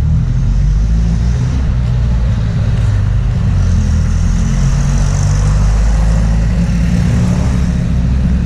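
Roadside traffic: a steady low rumble of passing vehicles, with a louder hiss, as of a car going by, swelling in the middle and fading after.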